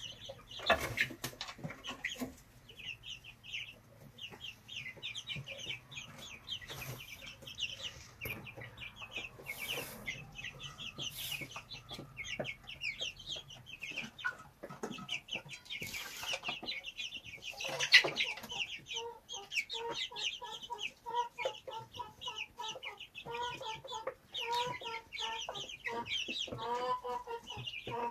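Young chickens peeping: a rapid run of short, high calls, with a lower, repeated clucking joining in from about two-thirds of the way through. Scattered sharp knocks, the loudest a little past halfway.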